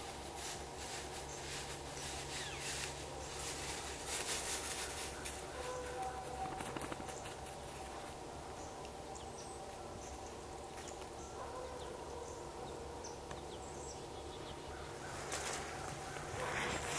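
Distant, drawn-out howling from the woods, purported to be a coyote, with short animal and bird calls breaking in about six and twelve seconds in. Sharp crackles run through the first few seconds.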